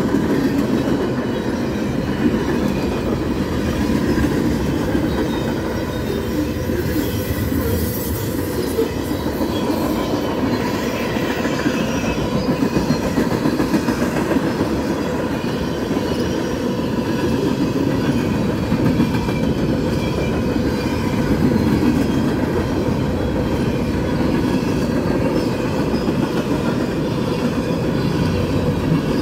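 Freight train's cars rolling past close by, steel wheels clattering over the rail joints in an uneven, continuous rhythm.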